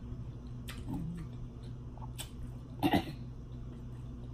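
A woman coughs once in two quick bursts about three seconds in while eating, with faint clicks of food being handled over a steady low hum.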